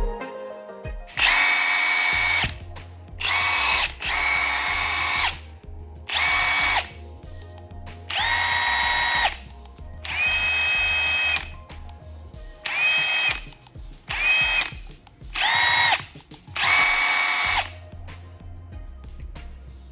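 Bosch GDS18V-1050H 18 V brushless cordless impact wrench run in about ten short trigger pulls. Its motor whines at a different pitch from one pull to the next.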